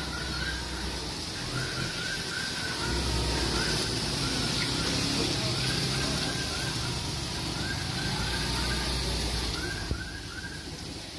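Steady rushing hiss in a street wrecked by a gas explosion, with groups of short, high chirps repeating over it and a low rumble that swells twice.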